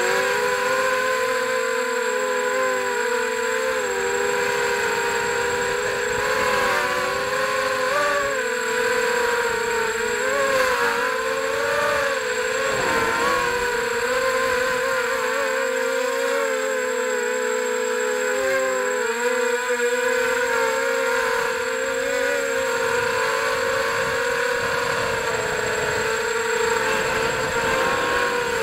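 Electric motors and propellers of an FPV drone whining steadily in flight, heard through its onboard camera, the pitch wavering up and down a little.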